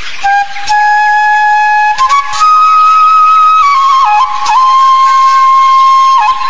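Background music: a single melody line of long held notes, flute-like, that steps up in pitch about two seconds in and has quick little dips between notes near the end.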